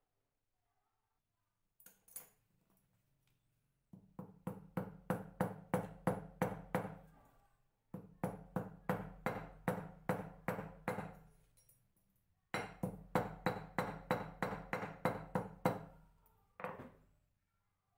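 Small hammer tapping quickly and lightly on a steel anvil block, peening a wire rivet so that it locks a chainmail ring closed. Three runs of taps, about five a second and each a few seconds long, with the steel ringing after each tap; one last single tap near the end.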